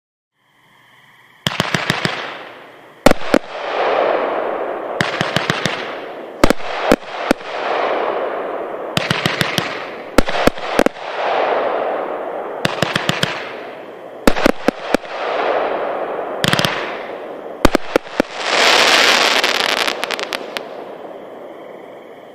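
A 25-shot, 500-gram consumer fireworks cake (Pyro Demon's Neon Thunder) firing: rapid clusters of sharp bangs, each followed by a long fading crackle, repeating every couple of seconds. A bigger, denser volley comes near the end and then dies away.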